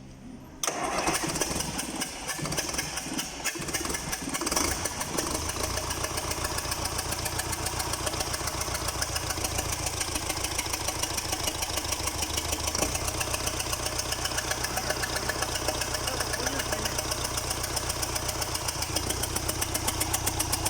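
Liebherr 924 excavator's diesel engine starting after a repair. It catches about half a second in, runs unevenly for a few seconds, then settles into a steady idle with an even beat.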